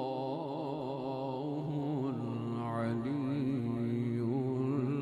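Male qari reciting the Quran in melodic tajweed style, holding long wavering notes with slow ornamented turns.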